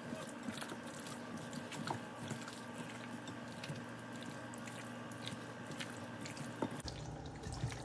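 Hands squishing and kneading raw chicken drumsticks coated in seasoning and oil in a glass bowl: soft wet squelches and small irregular clicks over a faint steady hum.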